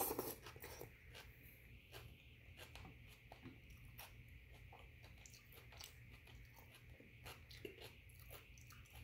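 A person eating chicken rice porridge with a metal spoon: a slurp off the spoon right at the start, then quiet chewing and scattered light clicks of the spoon in a metal pot.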